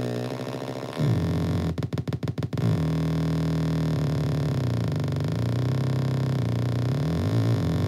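Handmade PsCyBr DeKrYpTR light-controlled noise box sounding a low electronic drone. About two seconds in, the drone is chopped into a rapid stutter of about eight cuts. It then holds steady, with slow dips and returns in pitch, as a hand plays over its light sensor and a light-based expression pedal.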